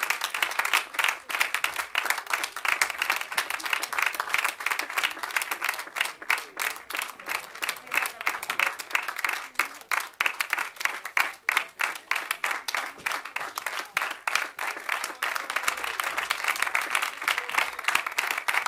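A theatre audience applauding, many hands clapping steadily, after the performance ends.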